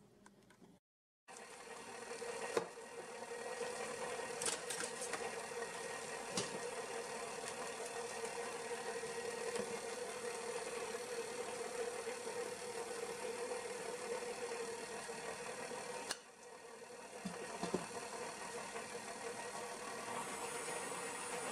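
KitchenAid stand mixer motor running steadily, its flat beater mixing cake batter in a stainless steel bowl. The hum cuts out briefly about a second in and dips again about 16 seconds in.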